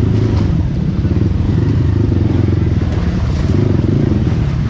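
Trail motorcycle engine running steadily, its rapid firing pulses loud and low-pitched.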